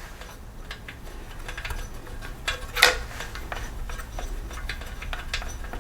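Small metal clicks and clinks of a wrench and loose bolts as the heat shield comes off a snowblower engine, with one louder clink about three seconds in.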